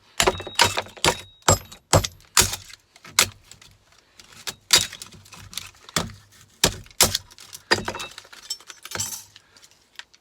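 Irregular sharp cracks, knocks and clinks, about two a second: plastic cracking and metal parts clattering as scrap electrical fittings are broken apart by hand.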